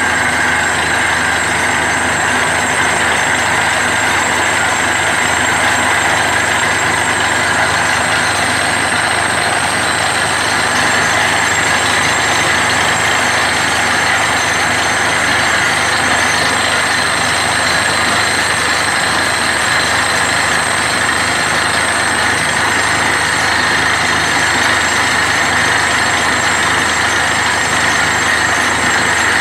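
Truck-mounted borewell drilling rig running steadily while drilling, with compressed air blowing dust and rock cuttings up out of the borehole.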